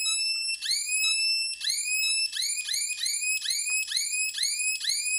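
Homemade fish-shocker inverter circuit running, giving a repeated electronic chirp that rises sharply in pitch each time. The chirps come two or three a second at first and speed up to four or five a second about two seconds in.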